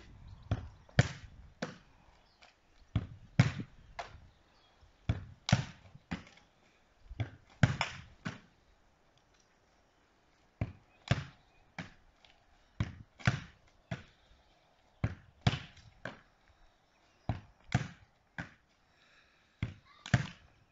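Football being kicked against a house wall and caught, again and again: a string of sharp thuds, often in close pairs or threes, as foot, wall and hands strike the ball. There is a short pause about halfway through.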